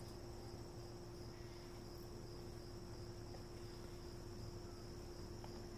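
Steady high-pitched chirring of crickets, unbroken throughout, over a faint low steady hum.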